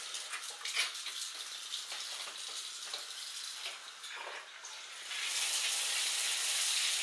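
Water running from a newly installed bathroom faucet set to warm, the first water through its new supply lines while they are checked for leaks. The flow's hiss grows louder about five seconds in.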